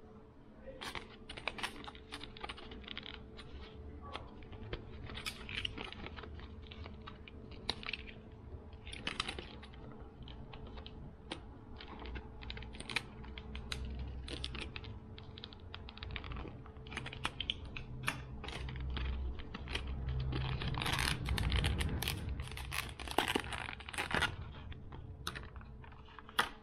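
Hands handling plastic fishing-lure packaging: irregular clicks, taps and crinkles, busiest about 21 to 24 seconds in, over a faint steady hum.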